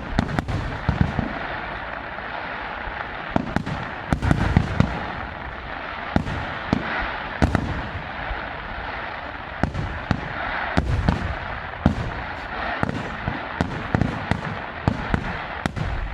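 Aerial fireworks going off in quick succession: irregular sharp bangs with booming tails, over continuous crackling from the bursting shells.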